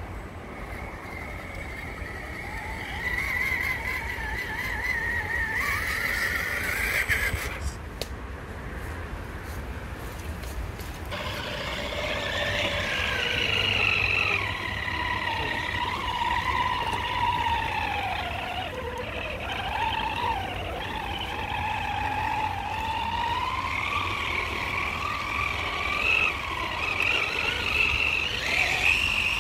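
Whine of a radio-controlled crawler's electric motor and gears, the pitch slowly rising and falling with the throttle; the sound changes abruptly about eleven seconds in, then continues with a lower whine.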